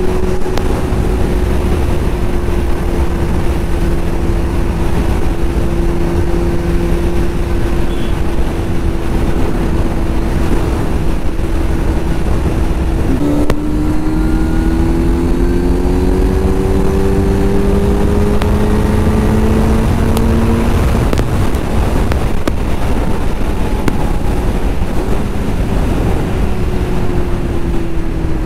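Kawasaki Z900's inline-four engine running at a steady cruise. About halfway through there is a short click, and the engine note then rises steadily for several seconds as the bike accelerates, before settling again near the end.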